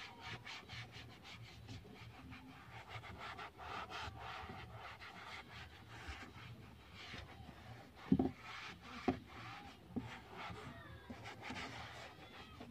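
Foam sponge rubbing over a plastic car dashboard in repeated wiping strokes, buffing in Armor All protectant. A knock about eight seconds in and a smaller one a second later stand out above the rubbing.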